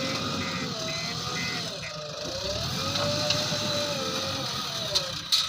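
JCB 3DX backhoe loader's diesel engine running under working load, its pitch rising and falling in smooth swells as the hydraulics are worked, with two sharp knocks near the end.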